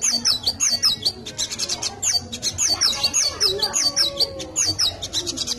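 Caged sogok ontong, a small sunbird, singing a fast, unbroken run of high, sweeping chirps: white-eye (pleci) song that it has learned and sings in place of its own.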